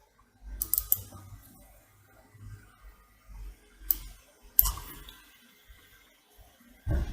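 Computer mouse clicks and keyboard taps, a few sharp separate clicks: a cluster about a second in, two more around four and four and a half seconds, and a heavier one near the end.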